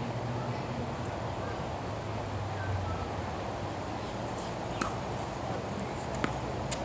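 Tennis balls struck by rackets and bouncing on a hard court: a few sharp, short pops in the second half, the strongest about six seconds in, over a steady low hum.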